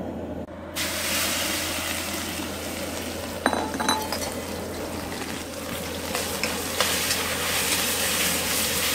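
Butterfly shrimp sizzling in hot oil in a hand-forged Zhangqiu iron wok, stir-fried with a metal wok ladle that clinks against the pan now and then, over the steady rush of a high-output propane wok burner. The sizzle starts abruptly under a second in.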